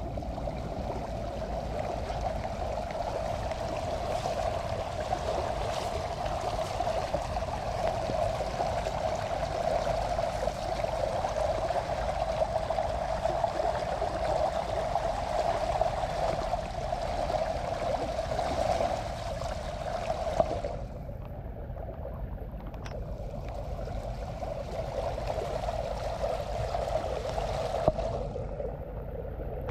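Shallow floodwater rushing and splashing steadily along a narrow channel and through a mesh fish trap. The higher hiss thins out about two-thirds of the way through, and there are a couple of brief knocks.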